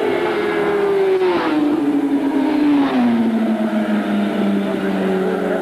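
Racing motorcycle engines running at high revs, the engine note dropping in steps about a second in and again about three seconds in.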